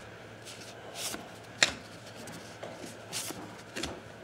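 Baseball cards being flipped through by hand, card stock sliding and snapping against card in a handful of short swishes and flicks, the sharpest about a second and a half in.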